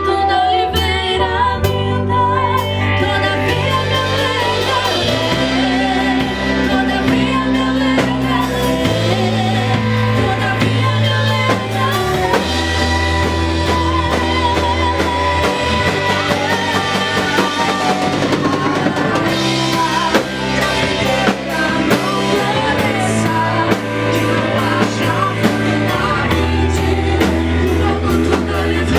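Live worship band playing a song: voices singing over keyboard, guitar and drum kit, with the chords changing every couple of seconds.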